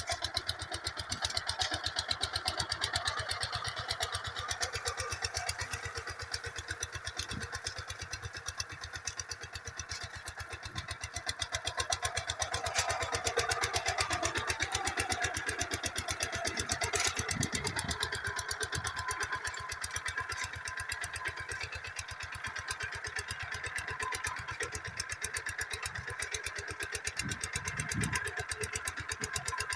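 Walking tractor's engine running steadily while pulling a plough, a rapid, even firing beat that swells somewhat louder in the middle.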